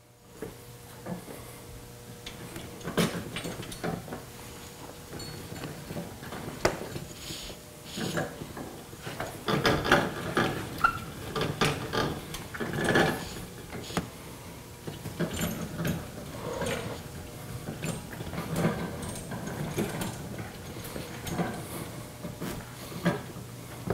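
Pitbull motorcycle lift rolling on its caster wheels across the floor with a raised Can-Am Spyder on it, as it is pushed and turned around by hand: irregular clicks, knocks and rattles.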